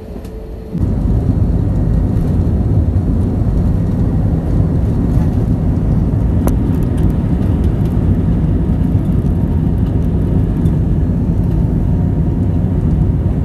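Jet airliner's engines at take-off power with the rumble of the take-off roll, heard from inside the cabin as a loud, steady, low noise that comes in abruptly about a second in.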